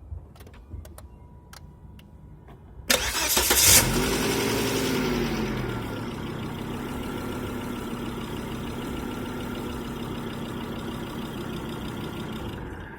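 Car engine start: a few light clicks, then the starter cranks for about a second and the engine catches with a brief rev. It settles to a steady idle, with a thin whine running over it, and is switched off near the end.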